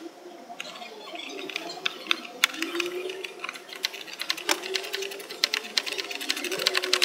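Ratchet wrench clicking in quick runs as a headlight mounting screw is tightened. The clicks are sparse at first and come thickest in the second half.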